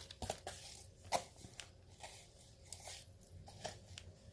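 Scattered small clicks and rustles from a costume-jewelry necklace and its plastic packaging being handled, with one sharper click about a second in.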